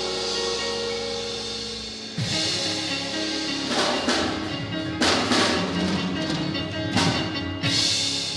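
Band music: held keyboard chords, then a drum kit comes in about two seconds in, with cymbal crashes every second or two.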